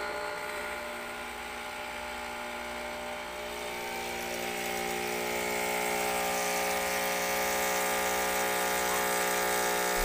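Krups home espresso machine's pump buzzing steadily while it brews a shot into the cup, getting louder and hissier through the middle as the coffee flows.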